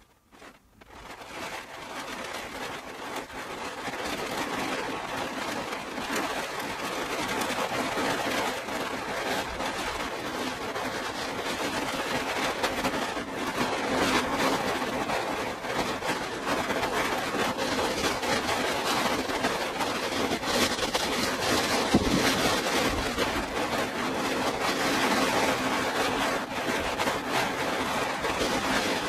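Heavy rain pelting a car's roof and rear window, heard from inside the car: a dense, steady patter that swells up within the first second or two. There is one brief low thump about two-thirds of the way through.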